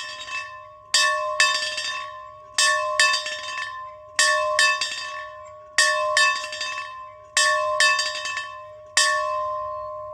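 A bell being rung, struck in groups of two or three quick strokes roughly every second and a half, each ringing on with a clear sustained tone. The last stroke comes about nine seconds in and is left to ring out.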